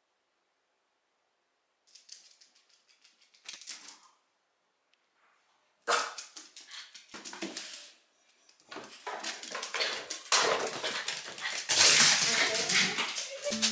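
Small Shiba Inu barking: a sudden first outburst about six seconds in, short bursts for two seconds, then near-continuous barking from about nine seconds in that is loudest near the end.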